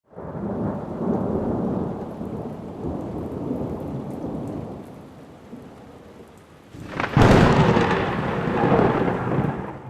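Thunder: a long rolling rumble that fades, then a sharp crack about seven seconds in followed by a second loud rumble.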